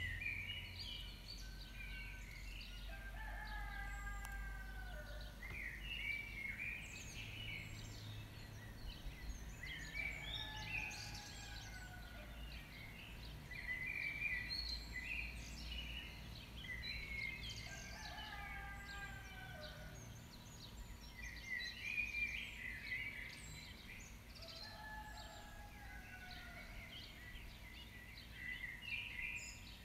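Bird-like calls in a repeating pattern: downward-sliding cries mixed with bursts of high chirps, coming back about every four seconds over a steady low hum.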